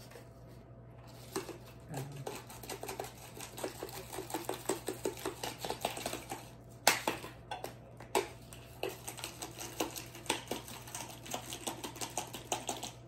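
Plastic spice shaker of garlic powder being shaken over raw chicken breasts: a quick run of light rattling taps, several a second, with a few louder sharp clicks.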